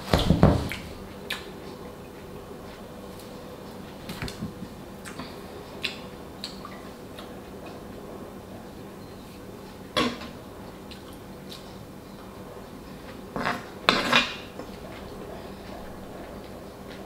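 A metal fork clinks and scrapes against a frying pan in scattered strokes. Louder clatters come at the start, about ten seconds in, and twice near fourteen seconds, with lighter taps in between.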